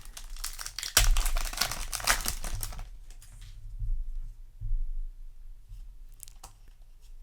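Foil booster pack of trading cards being torn open and its wrapper crinkled, dense and loudest from about a second in to about three seconds in, followed by quieter handling of the cards with a few soft clicks.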